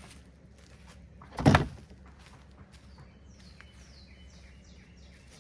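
A single loud thump about a second and a half in, then a bird singing a quick series of short notes that each slide downward in pitch.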